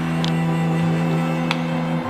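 Background music with sustained low notes, with a couple of faint clicks.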